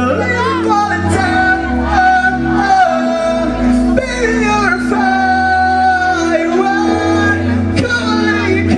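Live pop band playing, with a lead vocal singing a melody over sustained keyboard and bass notes.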